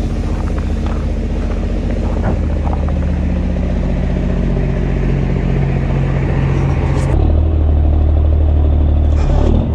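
Straight-piped Kenworth C500's Cummins ISX diesel idling with a steady low rumble. About seven seconds in it suddenly becomes louder and deeper.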